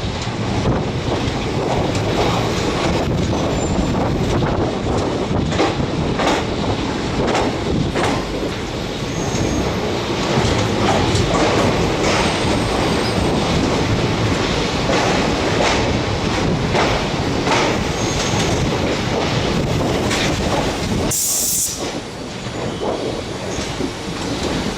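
Train running on rails: a steady rumble with irregular wheel-on-rail clicks and knocks. Near the end comes a brief high squeal, after which the running sound is a little quieter.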